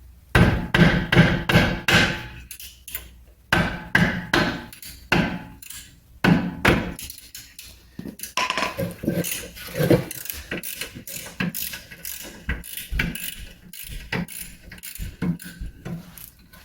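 Metal hand tools knocking and clinking against a car's rear brake caliper while its bolts are worked loose: a string of sharp, irregular knocks in clusters.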